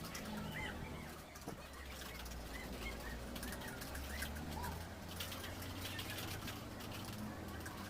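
Faint bird chirps, many short arched calls repeating, with a few light clicks about five to six seconds in over a low steady hum.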